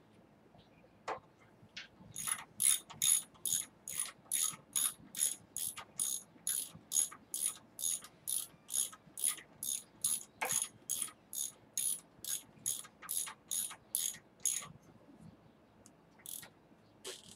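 A 3/8-inch hand ratchet clicking in quick, even back-strokes, about three a second, as it runs in an Allen bolt on a Harley Dyna's rear engine mount. The clicking stops a few seconds before the end, and a couple of lone clicks follow.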